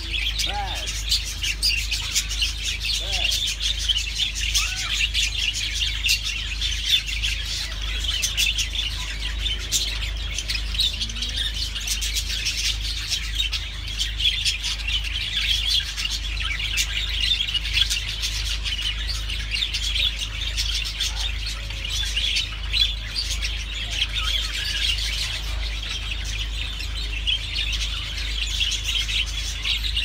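A flock of budgerigars chattering and chirping continuously: a dense, unbroken warble of short, high chirps from many birds at once.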